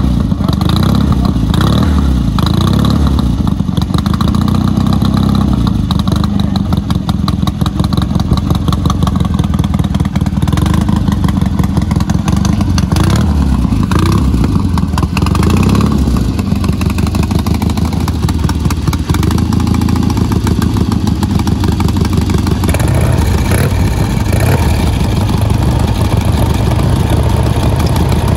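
Vintage British motorcycle engines, Vincent and Triumph twins, running close by, with the throttle blipped now and then so the pitch rises and falls.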